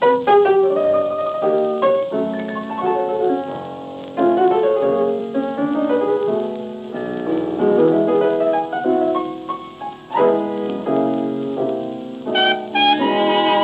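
Background music: a piano playing a melody of separate ringing notes, with sustained held notes coming in near the end.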